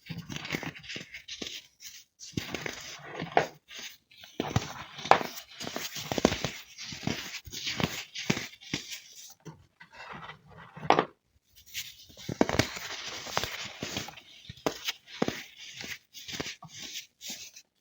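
Crispy baked baking soda being crushed and broken apart, in irregular bursts of crunching and crackling with short pauses between them.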